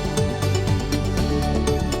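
Background music: an electronic track with a steady beat and sustained synth notes.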